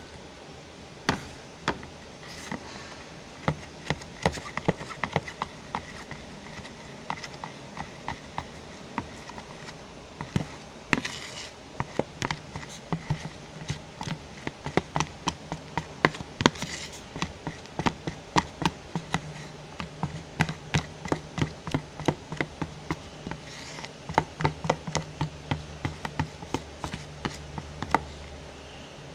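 Spoon clicking and tapping against a bowl in quick, irregular strokes, a few a second, as the glue and detergent slime mixture is stirred, over a faint steady hum.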